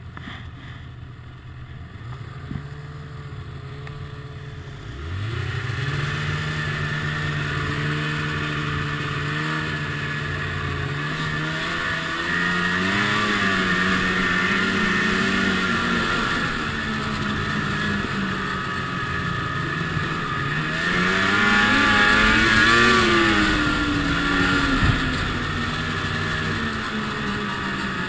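Ski-Doo MXZ snowmobile engine under throttle on a trail. It runs low and quieter at first, revs up sharply about five seconds in, then keeps rising and falling in pitch as speed changes, and is loudest a little past two-thirds of the way through.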